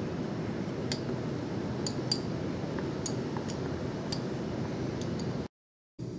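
Light glassy clinks, about one a second, as a porcelain filter funnel is knocked against a glass petri dish to empty out crystals, over a steady rushing background noise. The sound cuts out abruptly near the end.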